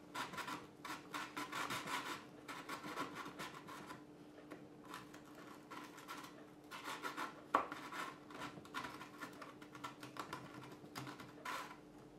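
Hand-tool scraping and rubbing strokes deburring drilled holes in a rifle stock's plastic shell, in uneven runs, with one sharp click a little past the middle.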